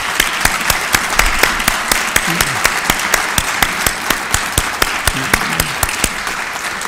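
Audience applauding steadily, with many sharp individual hand claps standing out from the general clapping, easing slightly near the end.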